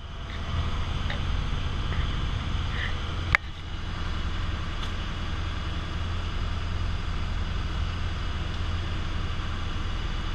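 A fishing boat's engine running with a steady low hum, and a single sharp knock about three seconds in.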